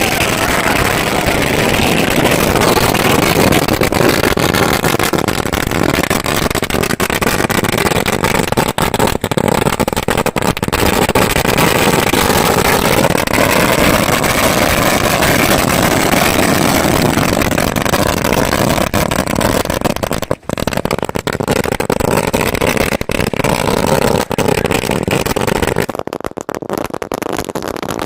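Long chained string of firecrackers (a Diwali ladi) going off in a rapid, unbroken crackle of many small bangs a second. The bangs thin out into sparser pops near the end.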